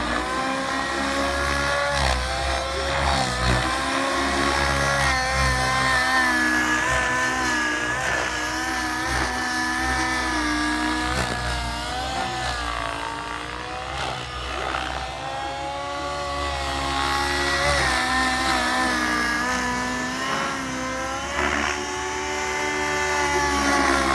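SAB Goblin 700 nitro RC helicopter in flight: the glow engine and rotor hum as one steady pitched drone. The pitch dips and recovers a little as the helicopter is flown, while the Maxx governor holds the head speed.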